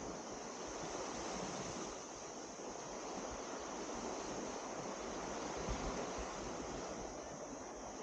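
Small waves breaking and washing up a sandy beach: a steady, even rushing wash. A few short low thumps about six seconds in.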